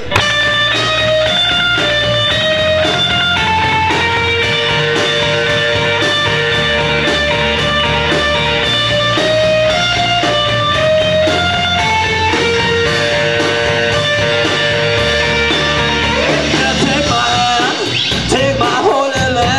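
Rock band playing live, guitar-led: a melody of held notes over a steady bass line, loosening into a looser, broken-up texture near the end.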